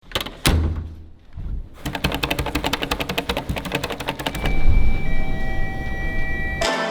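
Rapid mechanical clicking, about ten clicks a second, after a few opening thuds, then steady tones and a low thud. Music begins near the end.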